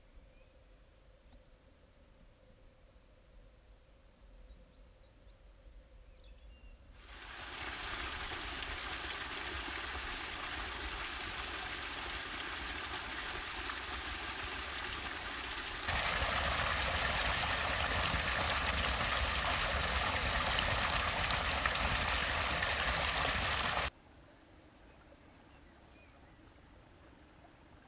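Water from a stone fountain's three spouts splashing steadily into its trough. It starts after a quiet stretch with faint bird chirps, gets louder about halfway through, then cuts off suddenly back to quiet outdoor ambience.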